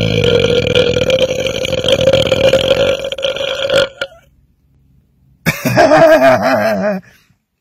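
A man belching: one long, loud, steady burp lasting about four seconds, then after a short pause a second, shorter burp whose pitch wavers.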